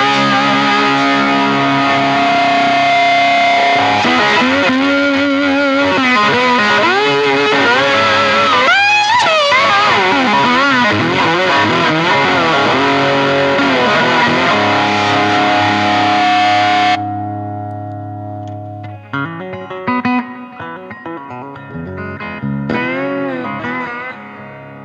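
Electric guitar played through a cranked 40-watt, two-6L6 Fat Jimmy Avionic tube amp head, with a gain pedal and reverb-delay on: distorted lead lines with string bends and wide vibrato. About two-thirds of the way in, the distortion cuts off suddenly and a few quieter notes ring out and fade.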